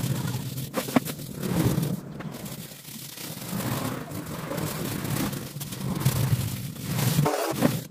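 Flat bristle brush scrubbing acrylic paint onto canvas: an uneven, grainy rubbing that comes and goes with the strokes.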